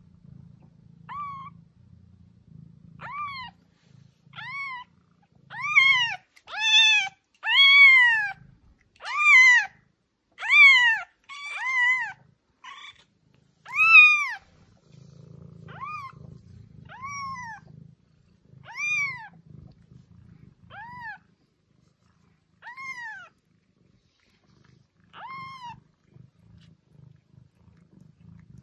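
A very young kitten mewing over and over, about twenty high, thin mews that each rise and fall in pitch. The calls come loudest and fastest in the middle, then thin out to single mews a few seconds apart.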